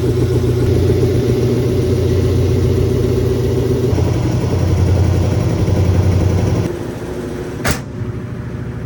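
GE stackable washing machine in high-speed spin with a rug-and-towel load, running with a loud, steady hum. The sound drops abruptly about seven seconds in, and a single sharp click follows about a second later.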